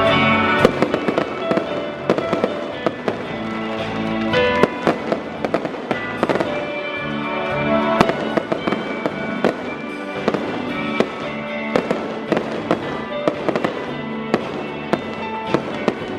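Stadium victory fireworks going off: many sharp bangs and crackles in irregular quick succession, over loud music with sustained pitched notes.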